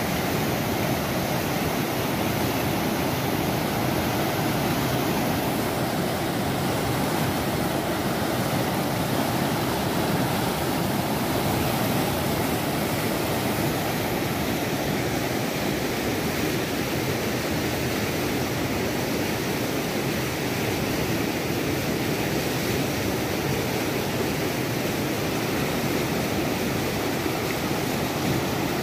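A muddy river in full flood, its fast brown water churning through standing waves with a steady rushing noise.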